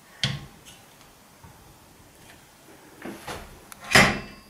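Metal mounting bracket of a mitre saw stand knocking and clacking against the stand's metal tube rails as it is fitted and locked in place: a sharp knock just after the start, a couple of softer knocks about three seconds in, and a loud clack near the end.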